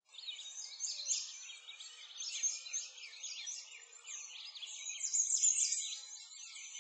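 Many small birds chirping and singing over one another: a dense chorus of quick, high chirps and short whistled sweeps with no pause.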